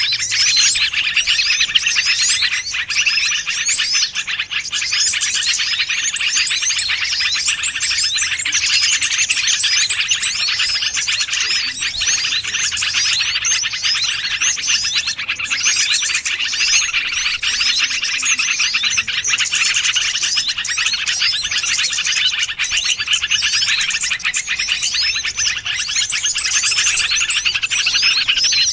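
Dense, continuous twittering of many small birds, quick overlapping chirps with no pause: a bird-lure (pikat) call recording meant to draw wild small birds in.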